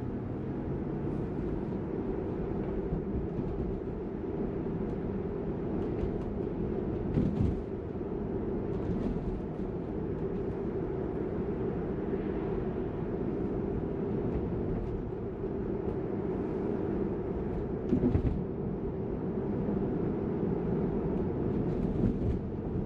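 Steady tyre and road noise inside the cabin of a Tesla electric car driving slowly on residential streets, with no engine sound. Two brief thumps stand out, about 7 seconds in and again about 18 seconds in.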